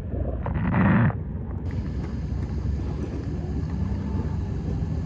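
An engine running steadily at idle with a low rumble, wind buffeting the microphone, and a brief louder rush about half a second in.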